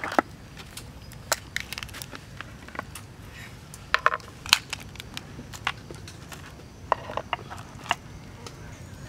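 Crab shells cracking and clicking as raw crabs are broken apart and handled on a wooden board: a dozen or so irregular sharp cracks, a cluster of them about four seconds in.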